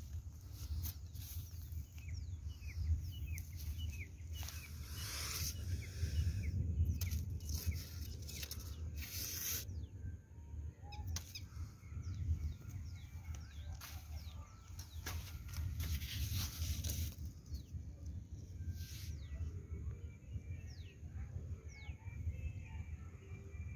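Outdoor field ambience: many short, falling bird chirps over a steady low rumble, with a few brief rustles now and then.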